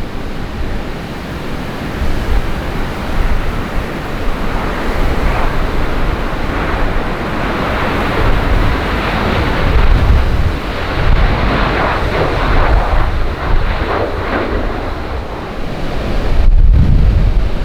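Strong gusty wind buffeting the microphone, with a low rumble throughout and a broader rushing that swells and fades in the middle.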